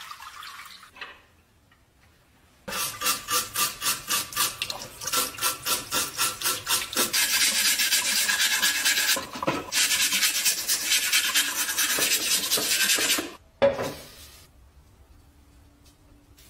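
A brush scrubbing the rusty steel burner of a camping stove in back-and-forth strokes, about three a second at first, then faster and steadier, stopping about 13 seconds in. A single short knock follows just after.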